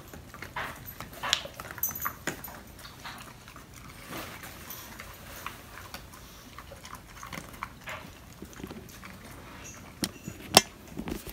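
Dogs gnawing on chew sticks, with scattered short crunches and clicks and one sharp knock near the end.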